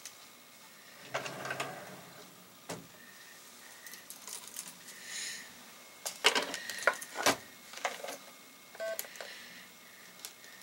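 Handling noises of small objects at a table: scattered clicks, taps and rustles, with a dense cluster of sharp clicks from about six to seven and a half seconds in, and a short tone near the end.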